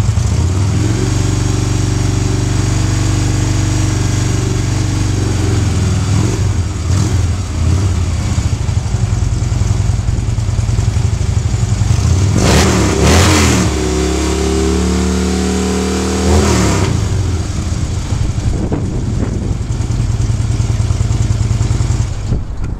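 Harley-Davidson FLHTK's V-twin engine running through Rinehart exhaust: idling, with a short blip of the throttle about six seconds in, a bigger rev about twelve seconds in and another near sixteen seconds, dropping back to idle after each.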